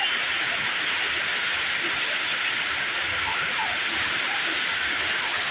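Heavy rain pouring onto a flooded road, a dense steady hiss that does not let up.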